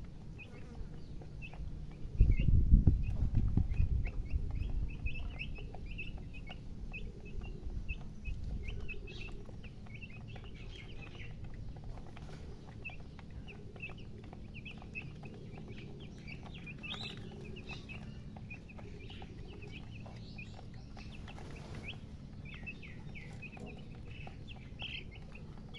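Baby chicks peeping: many short, high chirps in quick, irregular succession throughout. A burst of low rumbling comes about two seconds in, the loudest sound here, and fades over the next few seconds.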